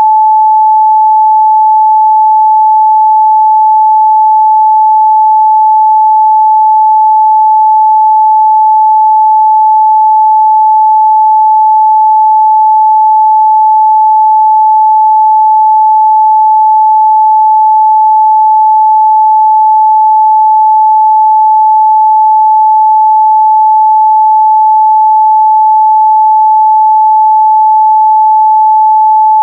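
Continuous 867 Hz sine-wave test tone, a single steady pitch held at a constant loud level.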